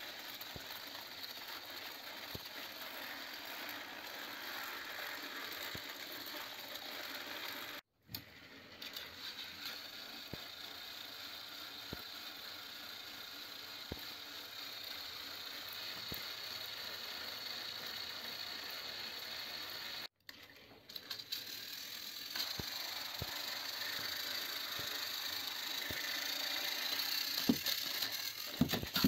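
Motors and plastic gearboxes of battery-powered toy train engines whirring steadily as they run coupled on plastic track. The sound drops out briefly twice. Near the end it grows louder, with clicks and rattling as one engine rears up off the track.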